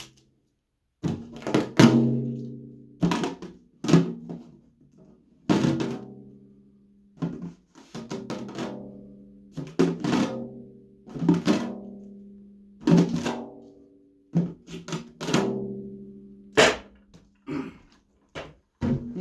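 A drum-like object struck again and again in an uneven rhythm, roughly once a second with some quick double hits, each hit ringing on with a low tone that fades away.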